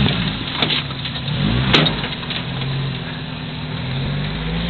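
A 4x4 truck's engine revs up and down as the truck crawls over a log pile, with two sharp knocks in the first two seconds. It then settles into a steadier run.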